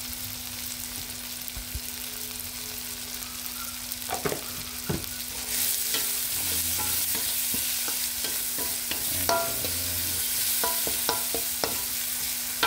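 Vegetables sizzling as they stir-fry in a wok, with a metal ladle scraping and clinking against the pan in short irregular strokes. The sizzle grows louder about halfway through.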